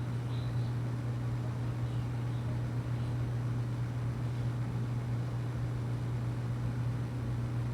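A steady low hum under a faint hiss, even in level with no breaks.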